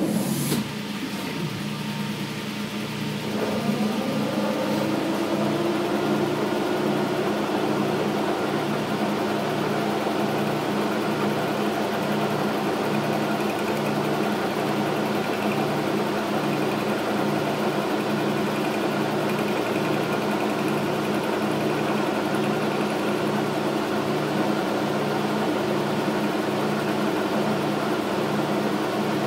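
Logan metal lathe running under power, its spindle and gear drive giving a steady hum with a regular low pulse about once a second. It comes on with a click at the start and grows louder a few seconds in as a carbide tool works the spinning part.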